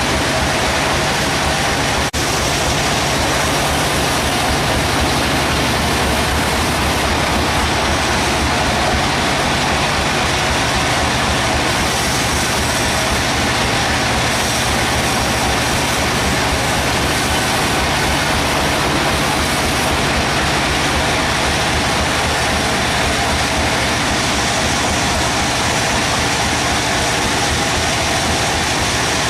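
Band sawmill running steadily: a loud, even mechanical drone with a low hum beneath it, broken by a brief dip about two seconds in.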